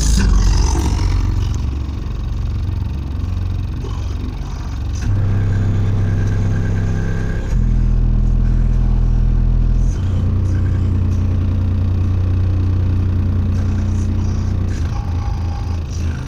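Two Skar Audio 15-inch subwoofers (a VVX and a DDX) in a sealed box playing music heard inside the car cabin. Loud, long-held deep bass notes shift to a new note every few seconds.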